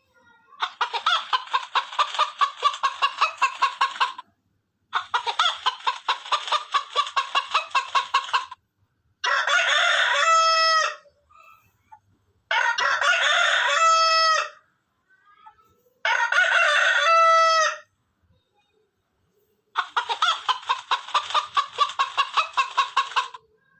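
Chickens: three rooster crows of about two seconds each in the middle, set between three longer bouts of rapid, repeated clucking.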